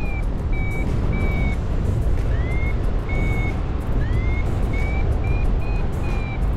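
Paragliding variometer sounding its climb tone: short high beeps that change pitch from one to the next, two of them sliding upward, and coming closer together near the end, which signals lift. Steady wind rumble on the microphone runs underneath.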